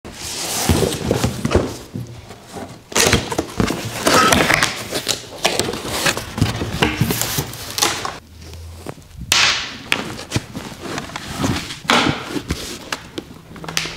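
Cardboard box and packaging being handled: flaps scraping and rustling, with several sharp knocks, as a motorcycle helmet is unboxed. It is briefly quieter a little past the middle.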